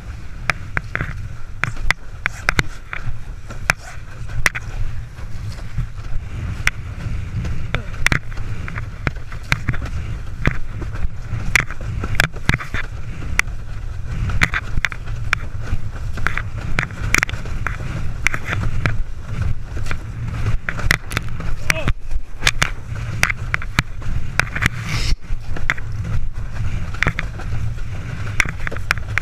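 Windsurf board planing fast over chop: a steady low rumble of wind and rushing water on the body-mounted camera, broken by frequent sharp slaps and knocks as the hull bangs across the waves.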